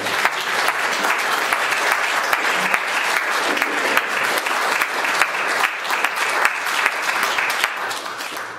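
Audience applauding, many hands clapping steadily, dying away near the end.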